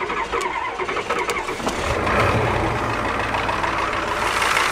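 Starter cranking a Ford 7.3-litre IDI turbo-diesel V8 with a wavering, rhythmic whine. About two seconds in the engine fires and keeps running, louder from there on.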